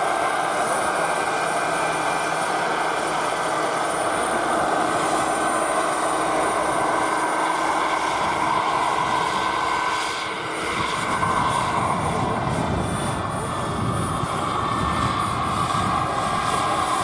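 Radio-controlled scale model helicopter running steadily, its engine and rotor making a continuous drone with a brief dip in level about ten seconds in.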